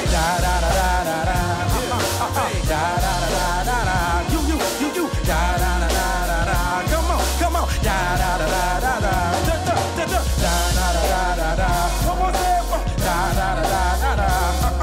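Live band music with a group of backing singers vocalizing in wavering harmony over steady bass and drums.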